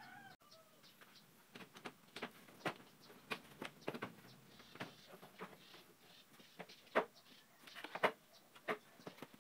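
Scattered clicks and knocks of a plastic car headlight housing being worked loose and pulled out of its mounting, with two louder knocks late on.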